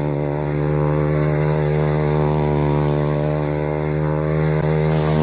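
Motorcycle engine held at high revs in a steady drone while the rear wheel spins in loose dirt, the bike pivoting around the rider standing beside it in a 'chainsaw' stunt.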